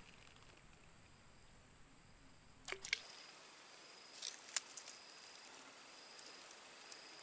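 Faint, steady high-pitched insect chirring, a little louder after about three seconds, with a few soft clicks around three and four and a half seconds in.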